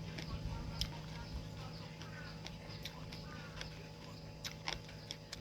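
Eating sounds of noodle soup being chewed, with scattered short sharp clicks and mouth smacks over a steady low hum.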